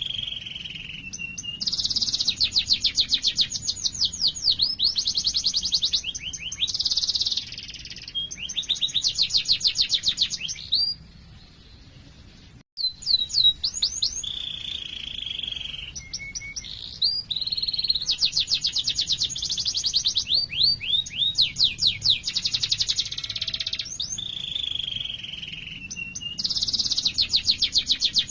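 Domestic canary singing a long song of fast rolling trills, rapid runs of evenly repeated notes, alternating with held whistled tones, with a brief break in the middle.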